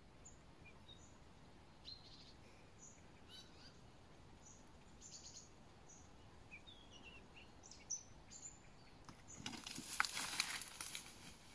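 Faint, scattered chirps of small birds in woodland. About nine and a half seconds in comes a louder burst of rustling and crackling in dry grass and leaves as the raccoon dog leaves its cage and runs into the undergrowth.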